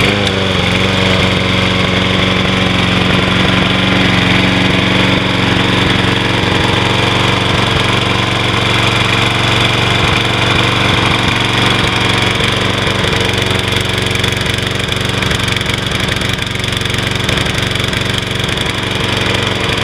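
Briggs & Stratton 675 series single-cylinder engine on a Troy-Bilt walk-behind lawn mower, running steadily at a fixed speed with a slight skip. The miss persists after a spark plug swap; the owner suspects contaminated fuel or an oil-fouled carburetor or linkage.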